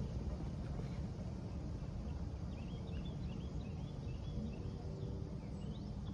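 Outdoor ambience: a steady low rumble, with faint, quick bird chirps starting about two and a half seconds in. No siren is sounding.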